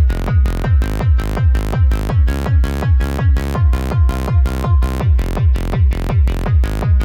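Electronic music with a steady, fast kick-drum beat, about two to three beats a second.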